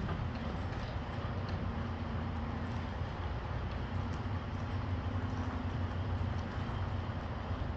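Diesel engine of a tractor-trailer running at low revs while the trailer is backed slowly, a steady low rumble.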